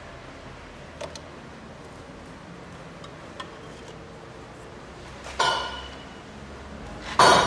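A few faint clicks, then two metallic clanks with a brief ringing tail, the second and louder one near the end, as a curved metal pipe is handled and knocked against the car's engine bay.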